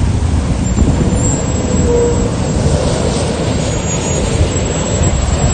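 Steady heavy engine rumble of arriving firefighting vehicles, mixed with wind buffeting the microphone.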